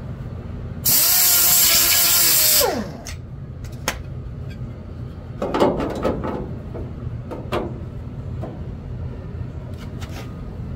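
A power tool working the edge of a sheet-metal truck cab corner patch panel runs loudly for about two seconds and winds down with a falling pitch, followed by a few light metal knocks and clanks.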